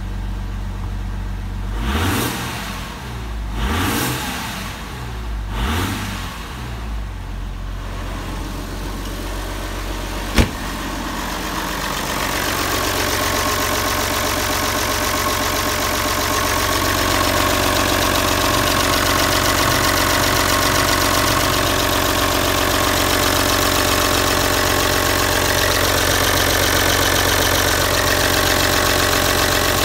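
Audi 2.5 TDI V6 turbodiesel (AFB) running. It is briefly revved three times in the first eight seconds, each time rising and falling in pitch. A single sharp click comes about ten seconds in, then the engine idles steadily with a fuller diesel clatter, heard with the bonnet open.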